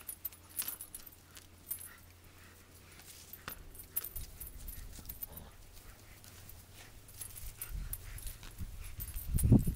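Two Labrador retrievers tugging at and tearing apart a dog bed: scattered rustles and clicks of fabric and stuffing as they pull, with a louder low thump near the end.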